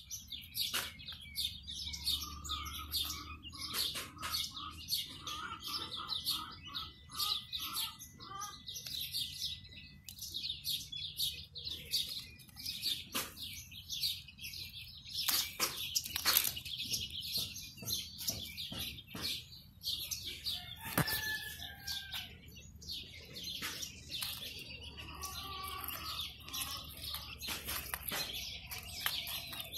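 Quail chicks peeping: many rapid, high-pitched chirps overlapping almost without pause. Lower, repeated calls join in during the first few seconds and again near the end, with a few sharp knocks about halfway through.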